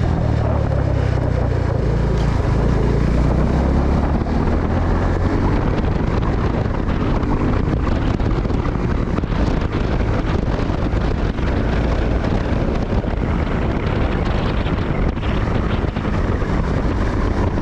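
Wind rushing over the microphone of a riding motorcycle, with the Suzuki Gixxer 250's single-cylinder engine running underneath. The engine is strongest in the first few seconds.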